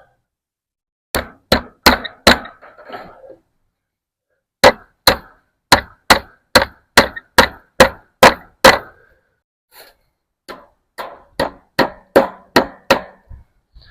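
Hand hammer blows fastening wire fencing onto a wooden gate. The blows come in three quick runs of sharp, even strikes, about two to three a second: around five, then about ten, then about seven.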